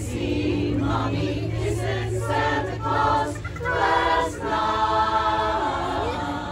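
Women's chorus singing, with longer held notes in the second half.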